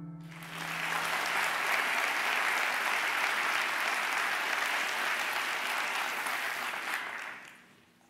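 Audience applauding: steady clapping that swells in just after the start and dies away near the end.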